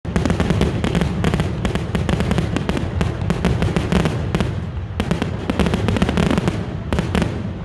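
Fireworks going off in quick succession: a dense, irregular run of sharp bangs and crackles over a low rumble.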